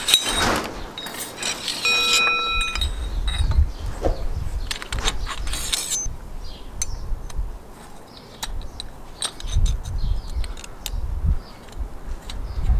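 Metal tubes and saw blades of a takedown bow saw being handled and fitted together: light clicks, clinks and rattles, with one ringing metallic ping about two seconds in. Gusts of wind rumble on the microphone.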